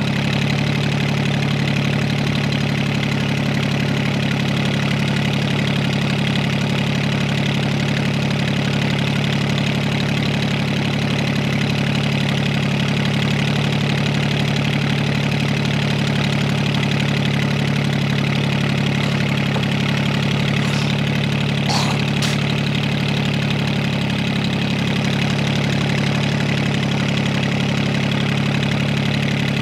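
Fishing boat's engine running steadily as the boat motors along, with a few brief clicks about three quarters of the way through.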